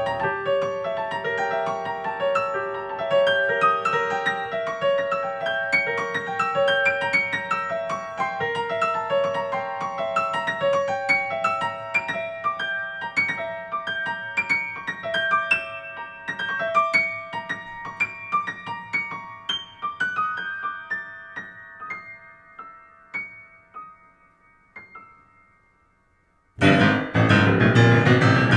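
Piano music: a stream of quick single notes that climb higher and grow fainter until they break off into silence. Near the end a loud, dense wash of sound cuts in abruptly.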